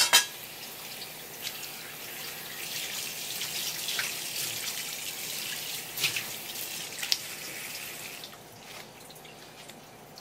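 Water running from a kitchen tap and splashing over a whole fish being rinsed on a wooden cutting board. The flow stops about eight seconds in. Two sharp knocks at the very start, and a few lighter clicks later.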